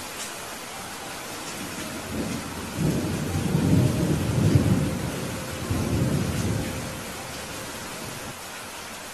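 Steady rain with a low rolling rumble of thunder that builds about two seconds in, swells, and fades away a few seconds later.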